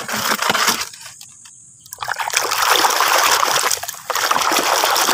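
Water splashing and trickling over a plastic toy truck as it is rinsed clean of mud: a short splash, a quieter second, then a longer stretch of splashing with a brief lull.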